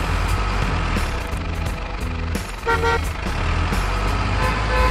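Heavy truck engine sound rumbling steadily, with a short horn toot a little past the middle.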